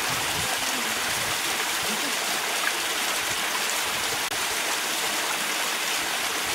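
Small waterfall splashing steadily over mossy rock into a shallow pool, a constant rush of falling water.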